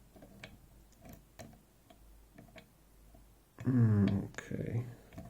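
Small sharp metallic clicks and ticks, spaced irregularly, from hand tools working at a lock cylinder's circlip. A louder, short voice-like sound falling in pitch comes about three and a half seconds in.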